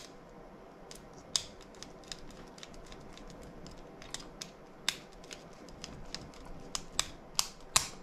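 A small screwdriver tightening the screw terminals on a Honeywell 5816 wireless transmitter's circuit board, clamping the wires in place. It makes scattered sharp clicks and ticks of metal on plastic, coming closer together near the end.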